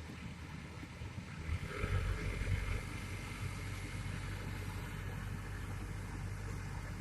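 Excavator's diesel engine running with a steady low hum, growing louder about one and a half seconds in as it takes on more load for a couple of seconds.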